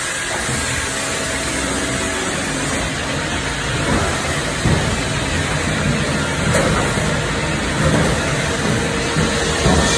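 Autoseamer duct line running: a steady machine hum, with a few short metallic knocks from about four seconds on as the sheet-metal duct sections are pushed along its bed.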